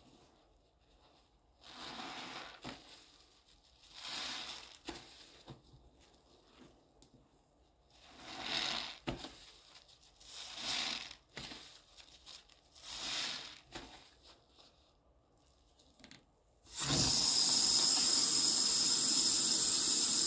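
Sponge loaded with pink soap paste squeezed and worked by a gloved hand in a sink of foam: five wet squelching swells. Near the end the faucet runs, a loud steady rush of water into the soapy sink.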